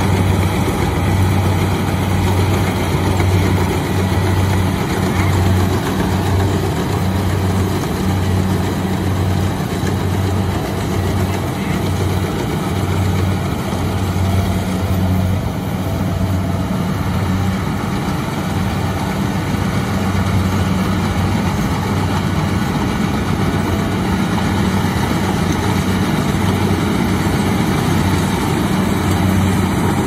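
Kubota DC-70 Plus combine harvester running steadily as it cuts and threshes rice: a constant low diesel engine hum with an even machinery noise over it.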